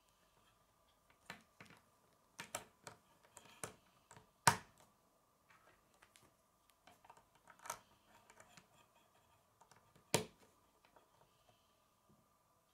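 K'nex plastic connectors and rods clicking and snapping together as pieces are pressed on by hand: a scattering of sharp clicks, with two louder snaps about four and a half seconds in and about ten seconds in.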